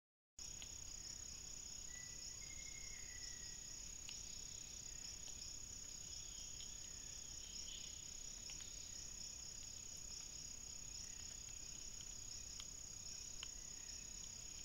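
Steady, high-pitched chorus of rainforest insects, with a fast pulsing trill just beneath the main drone. A few faint short calls and soft ticks sit underneath.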